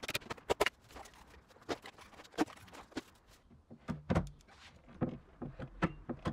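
Irregular knocks and taps from a hammer and handling of a white chipboard kitchen cabinet carcass during assembly, with a duller, heavier thud about four seconds in.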